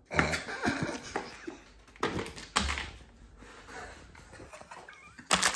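A small cardboard box being opened by hand: cardboard flaps scraping and rustling, a knock about two and a half seconds in as something is set down on the stone countertop, then plastic packaging crinkling near the end.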